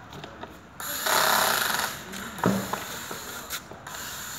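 Cordless drill running for about a second as it drives a screw into the underside of an office chair seat, followed a moment later by a single sharp knock.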